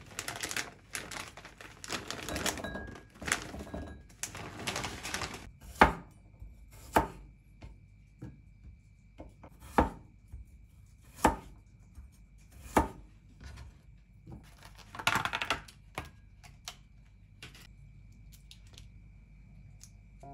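A plastic bag of peeled garlic cloves rustling as the cloves are tipped into a glass bowl. About six seconds in, a kitchen knife starts slicing garlic on a wooden cutting board, each cut ending in a sharp knock on the board, about one every second or so.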